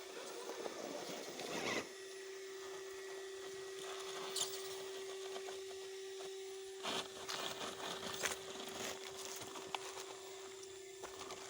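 Radio-controlled rock crawler with a brushed motor running at low throttle: a steady, even whine, with scattered clicks and scrapes from the truck working over rocks and dirt.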